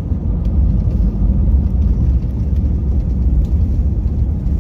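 Steady, loud low rumble inside the cabin of an Airbus A319 on its landing roll, from the wheels running on the runway and the engines. The wing's spoilers are up, a sign that the jet has touched down.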